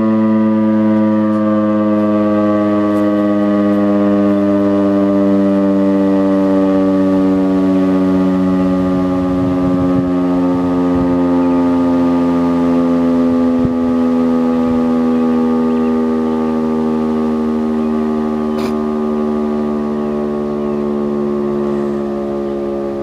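Federal Signal STH-10B omnidirectional outdoor warning siren sounding its steady alert tone, a single loud, rich tone whose pitch sags slowly and evenly downward.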